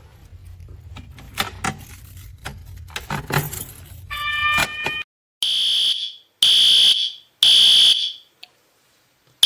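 Fire alarm horn of a System Sensor P2R horn-strobe sounding three loud blasts of a little under a second each with short gaps, a three-blast group like the temporal-three evacuation signal. Before it come a few seconds of scattered clicks and knocks, then a shorter, lower beep.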